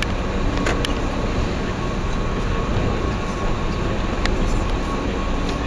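Minibus running on the road, heard from inside the cabin: a steady engine and road rumble with a faint steady whine and a few light clicks or rattles.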